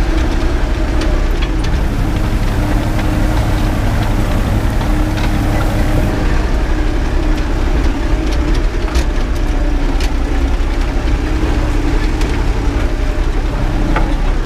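Erkunt tractor's diesel engine running steadily under load while pulling a harrow, heard from inside the cab, with scattered light clicks and rattles.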